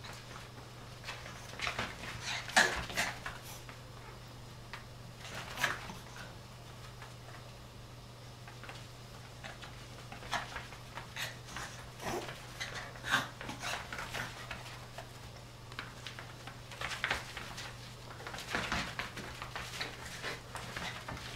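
Havanese and kooikerhondje puppies play-fighting on a woven rug: scattered short scuffles and small dog noises, in clusters with quieter stretches between.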